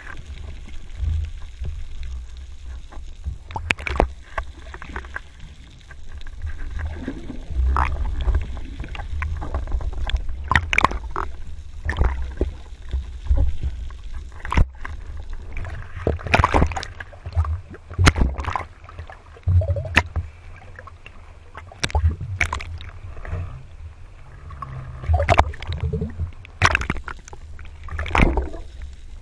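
Underwater sound picked up by a camera in a waterproof housing on a freediver: a low, muffled rumble of water movement with scattered sharp clicks and knocks at irregular intervals.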